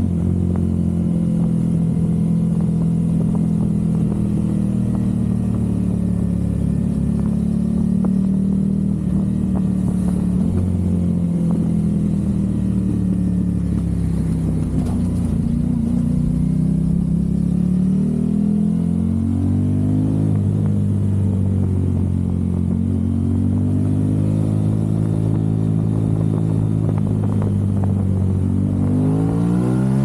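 Aprilia RS660's parallel-twin engine through a Mivv Delta Race slip-on exhaust, running at steady revs while the bike cruises. In the second half the revs rise and fall several times as it accelerates, with a sharp climb near the end.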